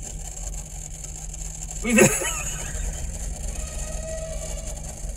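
Car engine idling with a steady low hum, heard from inside the car. About two seconds in, one brief loud cry falls in pitch.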